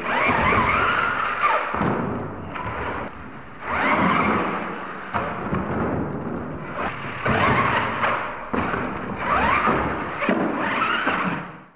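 RC monster trucks' motors whining up and down in repeated bursts, rising and falling in pitch as the throttle is worked, with thuds as the trucks hit the ramps and tumble.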